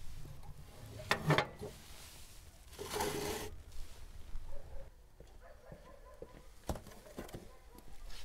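Kindling burning in the firebox of a steel wood-burning stove, with the metal firebox door being shut: a few sharp metallic knocks, the loudest about a second in, and a short rushing noise around three seconds.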